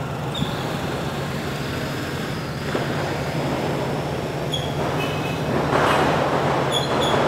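A steady low mechanical hum with swells of vehicle noise rising and falling a few times, and a few short high chirps.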